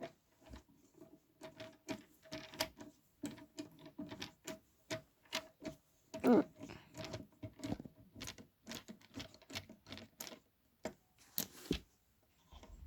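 Irregular run of small clicks and taps from hand tools and hands working on a subwoofer's enclosure during disassembly, with a few louder knocks.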